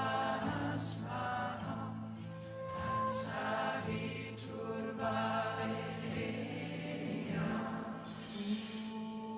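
Group singing of a devotional chant in phrases of about a second each, over a steady sustained drone.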